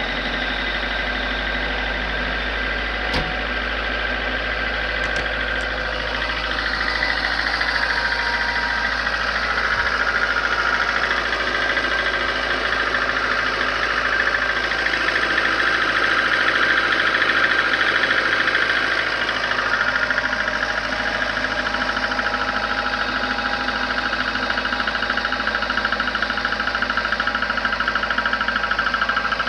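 VAZ-2110 16-valve four-cylinder engine running cold after a start at −10 °C, with a rapid knocking from the engine. This knock dies away as the engine warms up and is gone by about 80 °C.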